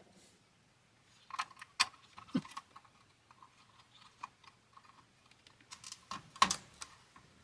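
Small scattered clicks, taps and scrapes of fingers handling an IC and pressing it into its socket on a Commodore 64 motherboard. The sharpest clicks come about two seconds in and again near the end.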